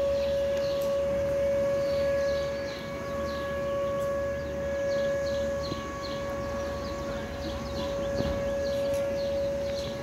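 Whelen WPS 2906 electronic outdoor warning siren sounding a steady tone during its routine test, swelling and fading as its rotating speaker array turns.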